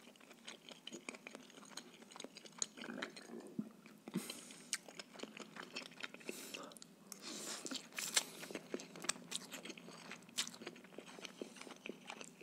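Close-miked eating of rice noodles: wet chewing with many small mouth clicks, and slurping the noodles off a fork, about four seconds in and again from about six and a half to eight and a half seconds.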